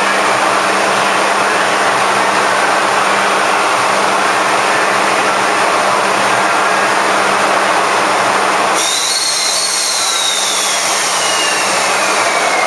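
EF64 electric locomotive standing with its cooling blowers running: a loud, steady rush with a low hum. About nine seconds in the sound changes abruptly: the hum drops away, the hiss turns brighter, and a thin high whine slowly falls in pitch.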